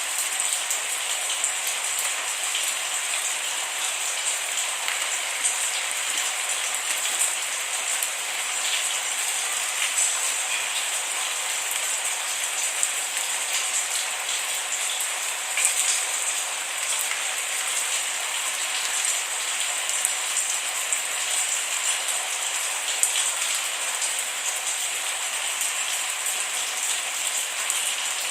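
Steady rain falling, a constant hiss with many small drops ticking on a surface, no thunder.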